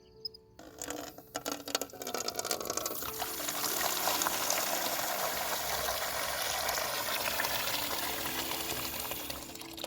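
Water running and splashing steadily, building up about three seconds in and stopping abruptly just before the end, after a few light clicks and knocks.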